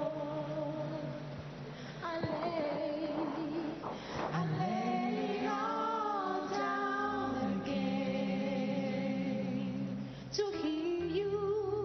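Music with a woman singing a slow, sustained melody over steady low accompanying notes.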